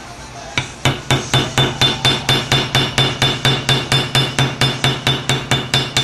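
Small hammer tapping a grease zerk fitting into a hole in a bicycle frame: an even run of quick metallic taps, about four a second, each with a short ringing note, starting about half a second in.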